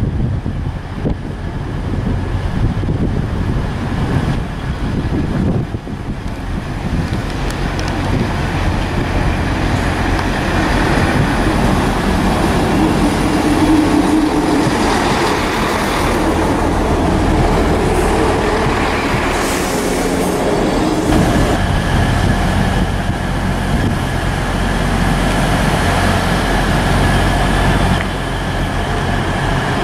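Class 158 diesel multiple unit arriving at the platform, its diesel engine running and wheels rolling on the rails as it passes close by, loudest around the middle.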